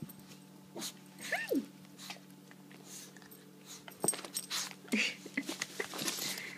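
Small dog excitedly squirming while being petted, with a run of short, quick breaths and rustling near the end. A woman's high, falling "Hi" comes about a second in.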